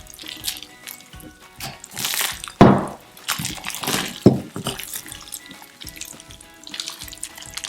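Slime being kneaded by hand: irregular wet squelches and clicks, with two sharper pops about two and a half and four seconds in. The slime is still sticky. Quiet background music plays underneath.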